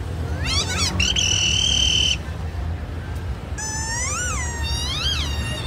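High squeaky whistle noises: a quick run of falling squeaks, then one steady shrill whistle blast about a second long, then two rising-and-falling hooting squeals. Under them runs a steady low traffic rumble.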